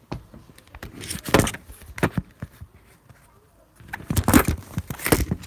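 Handling noise: rustling and knocks as a phone is moved about, in two spells, about a second in and again from about four seconds in.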